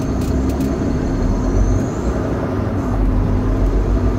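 Semi truck's diesel engine running, heard from inside the cab as a steady low drone with road noise as the truck rolls slowly forward. A few short clicks come about half a second in.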